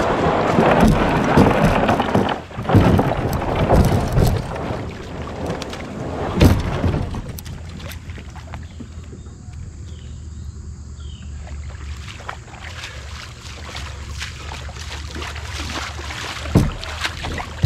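Water splashing and rushing around a kayak in a shallow river: loud and uneven for the first seven seconds or so, then settling to a quieter wash with scattered clicks.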